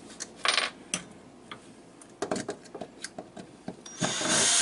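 Cordless drill starting up about four seconds in and running steadily. Before it come a scatter of light clicks and taps, with a short hiss about half a second in.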